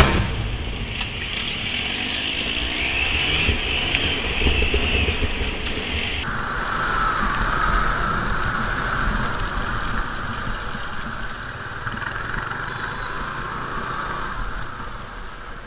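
Car on the move: a low engine rumble under a steady hiss, whose pitch drops abruptly about six seconds in.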